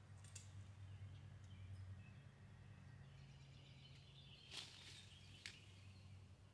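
Near silence with a low steady hum and faint bird chirps. Two short sharp clicks about a second apart, a little past halfway through.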